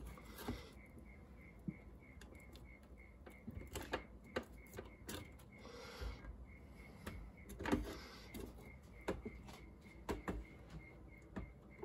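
Stand mixer running with its beater turning through cream cheese batter, a faint even ticking about three times a second over a low hum. A spatula scrapes and knocks against the stainless steel bowl now and then.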